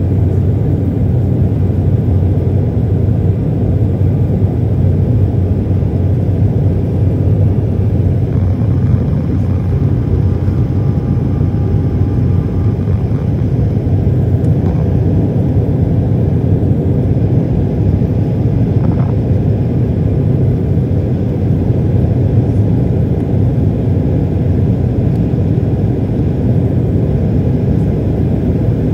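Jet airliner cabin noise at a window seat over the wing in flight: a steady, loud, low rumble of the engines and the air rushing past the fuselage.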